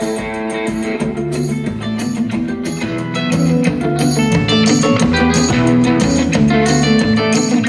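Guitar music played back through a vintage 1980s Tesla loudspeaker box in a sound test. Bass notes come in about a second in, and the music grows louder about three seconds in.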